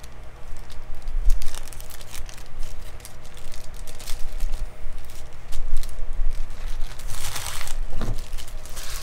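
Clear plastic packet of card sleeves crinkling as it is pulled open and handled, with irregular rustles that are loudest about seven seconds in.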